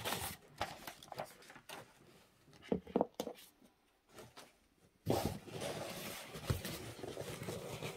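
Cardboard product box being handled by hand: scattered taps and light rustles, then a steady scraping rustle from about five seconds in.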